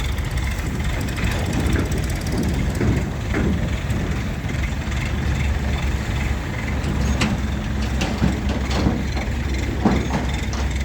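Steady low rumble of heavy machinery running, with a few short metallic knocks near the end.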